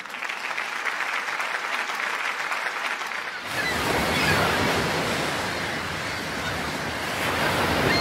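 Ocean surf washing on a shore with wind, a steady rush that grows fuller and louder about three and a half seconds in and swells twice.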